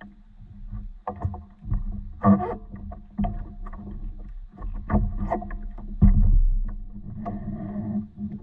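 Knocks, clatters and water sloshing from a paddleboard being moved about on while a fish is played on a spinning rod, with a heavy thump about six seconds in as weight comes down on the deck. A steady low hum runs underneath.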